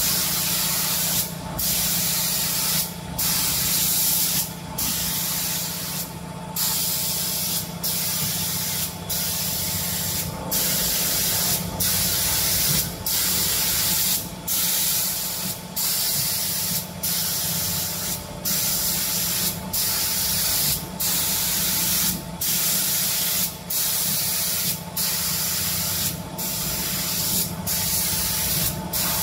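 Automatic spray-painting machine's spray guns hissing as they coat cabinet doors. The hiss breaks off briefly about every second and a half, over a steady low hum.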